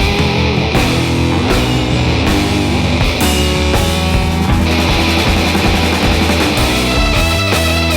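Loud heavy rock music with distorted electric guitars and drums.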